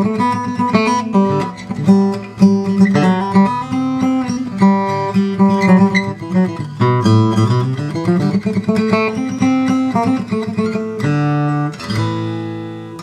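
Steel-string OM acoustic guitar with Brazilian rosewood back and sides and a torrefied Adirondack spruce top, played solo: picked melody notes over a moving bass line, closing with a couple of fuller chords about eleven seconds in, the last left to ring out and fade.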